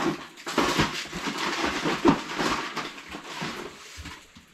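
Things being handled and moved about in a box: irregular rustling and light knocks that die down near the end.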